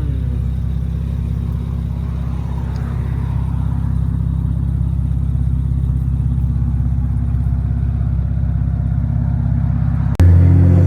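BMW 335i turbocharged straight-six exhaust droning loud and steady at a constant pitch. About ten seconds in it jumps abruptly to a louder, deeper drone.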